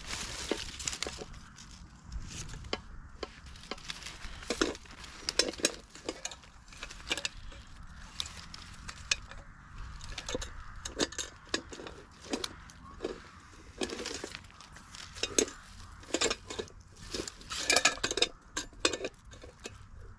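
Repeated light clinks and knocks of a metal Ridge Monkey toastie pan being handled and set onto a small gas canister stove.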